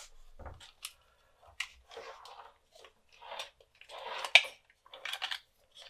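A USB-C laptop dock's circuit board being fitted into its plastic case by hand: scraping and rustling of plastic with scattered clicks, the sharpest click about four and a half seconds in.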